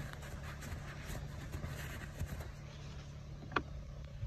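Paper shop towel rubbing and scrunching against a brake master cylinder reservoir as it is wiped down, with one sharp click about three and a half seconds in.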